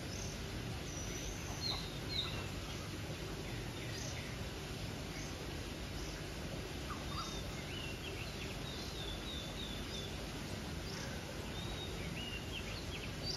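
Birds calling: many short, high chirps and whistles from several birds, overlapping irregularly, over a steady low rumble in the background.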